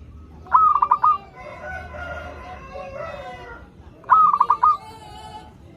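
Zebra dove (perkutut) cooing twice, each a short run of quick staccato notes. Between the two phrases a fainter, longer call, most like a rooster crowing, can be heard.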